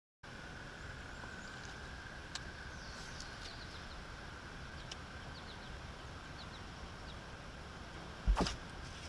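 Open-air ambience on a bass boat: a steady faint hiss with a thin high whine, a few faint bird chirps and two small clicks. A short, sharp whoosh comes about eight seconds in as the angler swings the rod through a cast.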